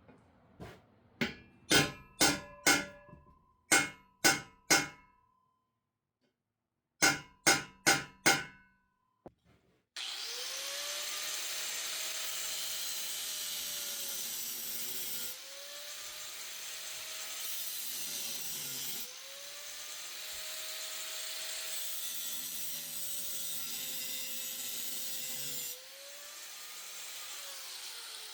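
About a dozen sharp, ringing hammer blows on a chisel against a seized exhaust-manifold nut, struck in three quick groups. Then, about ten seconds in, an angle grinder's cutoff wheel runs steadily, cutting metal, its pitch sagging and recovering every few seconds as it bites.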